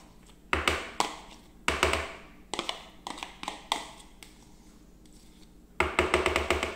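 A spoon knocking against the mixer bowl to tap off margarine: a few separate knocks with a short ring, then a quick run of about six taps near the end.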